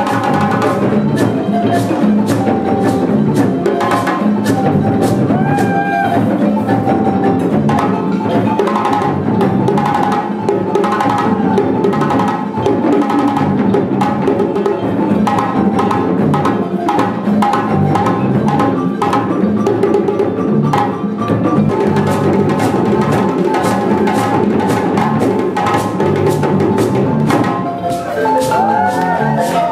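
Live West African band music: djembe hand drums and a balafon, a gourd-resonated wooden xylophone, playing a fast, dense dance rhythm.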